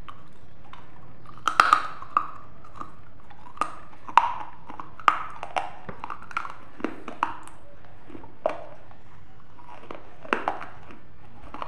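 Crisp cracks and crunches of baked terracotta clay, a broken clay diya or pot, being bitten and chewed close to the mouth. There are a dozen or so sharp snaps at irregular intervals, the loudest about two, four and five seconds in, over a steady background hiss.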